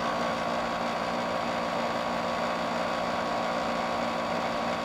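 General Electric ADEL50LRL2 dehumidifier running with its case off: a steady hum of its compressor and fan. The refrigeration side is working, its coils getting cold.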